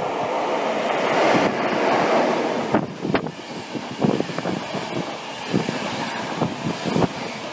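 RegioJet passenger coaches rolling past at a station, a steady rumble strongest in the first couple of seconds, with irregular sharp clicks as the wheels pass over rail joints.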